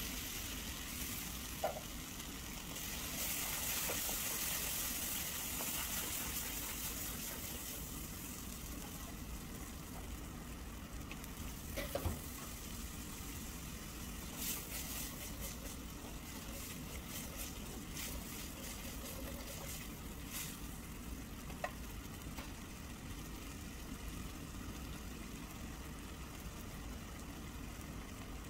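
Tomato sauce and stock sizzling in a hot pan of fried onions. The sizzle is loudest for the first several seconds, then settles to a steady, quieter simmer as the sauce comes toward the boil. A few sharp clicks are heard along the way.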